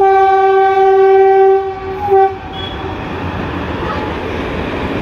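Electric locomotive's horn sounding one long blast of about a second and a half, then a short blast, as the train pulls into the station. After that comes the rumble of the locomotive and coaches rolling past.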